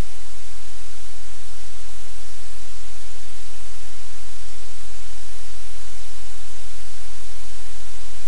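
Loud, steady static hiss with a low hum underneath, unchanging throughout: electronic noise on the livecam's audio feed.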